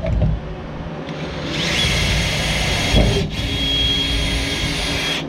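Handheld electric drill running at high speed with a steady whine, starting about a second and a half in, pausing briefly about halfway, then running on. A dull thump comes at the start and another just before the pause.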